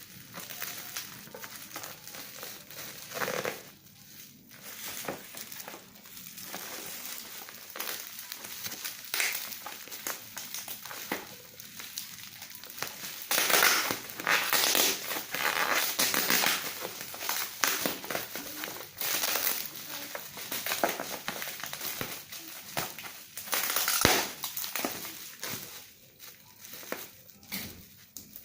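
Packaging of a hair clipper being handled and opened: irregular crinkling and rustling, with louder bouts in the middle and once more near the end.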